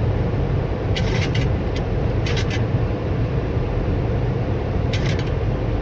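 Airliner landing: a steady, loud low rumble throughout, with a few brief high clicks about a second in, around two and a half seconds in, and near the end.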